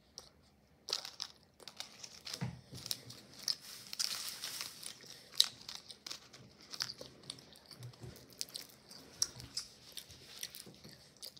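A child chewing a piece of orange Airheads taffy candy: irregular smacking and clicking mouth sounds that start about a second in.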